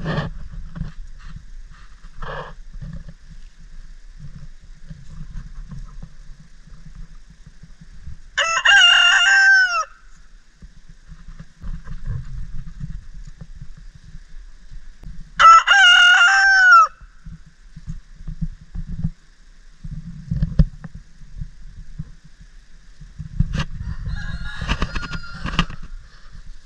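A rooster crowing twice, about seven seconds apart, each crow about a second and a half long and ending in a falling note.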